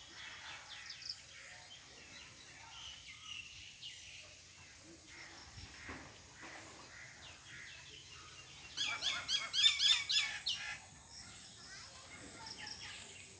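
Birds chirping over a steady background hiss, with a loud run of quick, repeated chirps for about a second and a half near the nine-second mark. A thin, steady high-pitched tone sits under it throughout.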